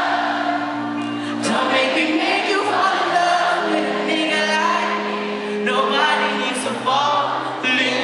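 Live concert audio of a male R&B singer singing over held low chords from the band, recorded from the audience in the hall.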